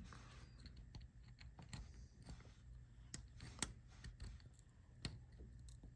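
Irregular small metal clicks and taps of a 1/4-inch wrench turning the screw that tightens a loose turn signal housing on a steering column. There is a sharper click about three and a half seconds in.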